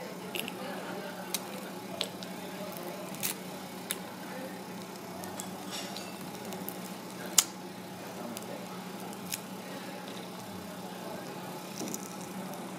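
Goose barnacles being broken and peeled apart by hand: scattered sharp clicks and cracks of the shell plates, the loudest about seven seconds in, over a steady low hum.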